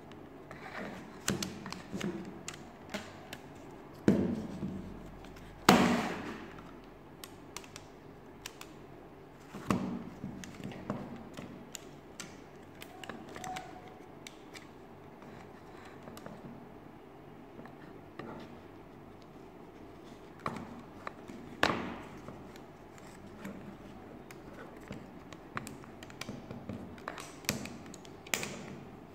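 Plywood parts of a UGEARS Wolf-01 wooden pistol model being handled while a rubber band is threaded through the frame: scattered light clicks and taps of wood on wood, with a few louder knocks.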